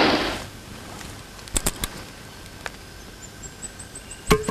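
Night jungle ambience: a steady high insect drone with short high chirps, broken by a few sharp clicks, the loudest near the end. A loud burst of noise dies away in the first half-second.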